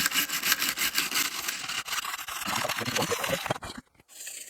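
Toothbrush bristles scrubbing dust from a keyboard's bare plate around the stabilizers with its keycaps removed. It makes quick back-and-forth strokes, about seven a second, that blur into steadier scratching and stop briefly near the end.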